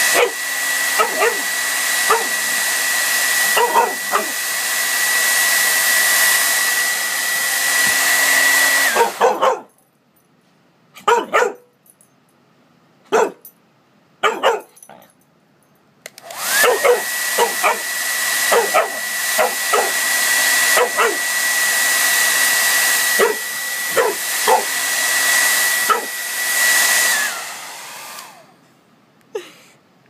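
Hand-held hair dryer blowing with a steady high whine, switched off about a third of the way in and back on about halfway through, then off again near the end. A dog barks at it repeatedly, with short barks both over the dryer's noise and in the quiet gap.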